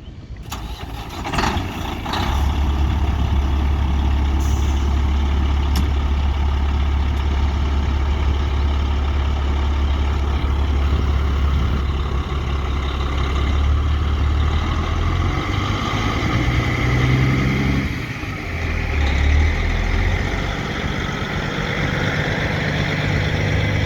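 Truck engine running while under way, a steady low drone whose pitch climbs in the middle, drops off briefly about eighteen seconds in and then picks up again.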